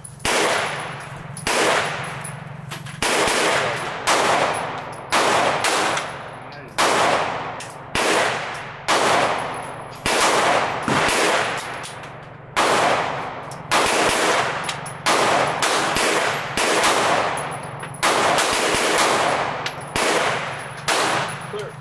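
Springfield XD9 Subcompact 9mm pistol fired in a steady string, about one shot a second and some twenty in all, each report trailing off in a short echo.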